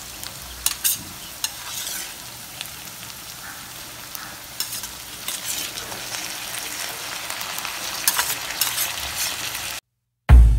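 Diced capsicum, onion and sweet corn sizzling in hot oil in a kadai, with clicks and scrapes of a metal stirring utensil against the pan. Near the end the sizzle cuts off, and after a short silence a loud drum beat starts.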